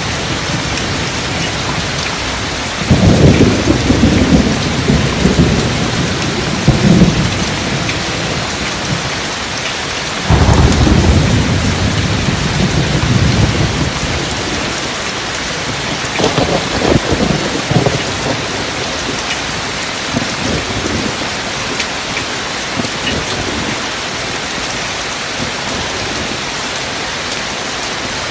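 Steady rain with three deep rolls of thunder: a loud one about three seconds in, another about ten seconds in, and a weaker one a few seconds later.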